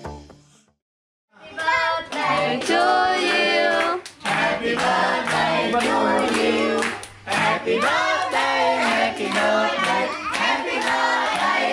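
A group of people singing a birthday song together, clapping along in time. The singing and clapping start about a second and a half in, after a brief silence.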